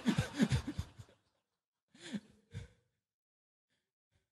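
Laughter after a joke: a quick run of short "ha" pulses that dies away about a second in, then two short breathy vocal sounds about two seconds in.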